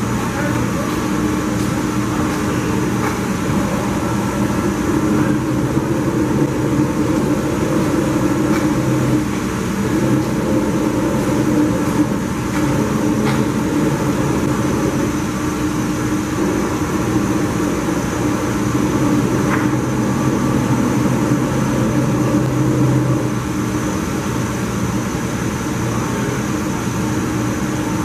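Cincinnati Milacron Saber 1250 CNC vertical machining center running with a steady mechanical hum made of several held tones, one of them high-pitched, while its table traverses under power. A few faint clicks come through.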